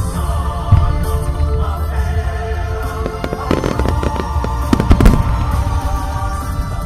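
Japanese hanabi fireworks going off over music, with low booms and sharp bangs and crackle. A dense cluster of bangs comes about three and a half to five seconds in.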